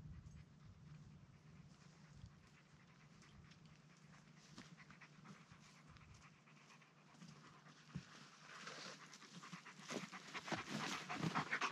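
Alaskan Malamute panting in quick, rhythmic breaths, faint at first and growing louder over the last few seconds.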